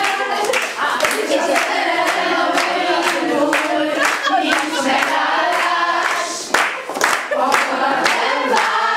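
A group of women singing a song together, with hands clapping along to the beat.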